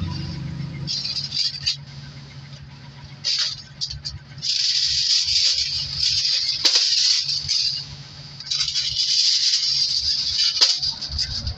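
Aluminum foil being pulled off its roll and handled, crinkling in several long stretches, with two sharp clicks, one in the middle and one near the end.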